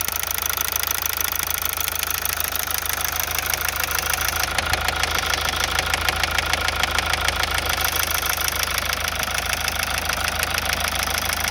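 Mazda 6 2.2 Skyactiv-D four-cylinder diesel engine running steadily with a fast, regular knocking clatter, the knock that the owner is asking about.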